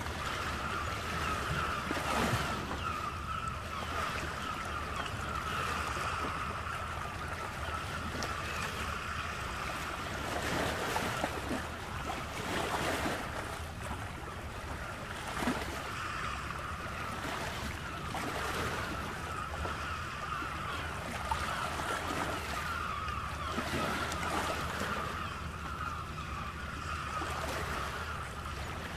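Ocean surf washing steadily, rising and falling in irregular swells every few seconds.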